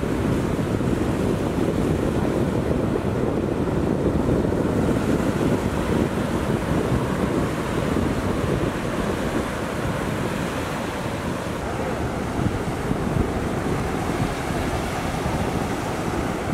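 Ocean waves breaking and rolling in as a steady low rush of surf, with wind buffeting the microphone.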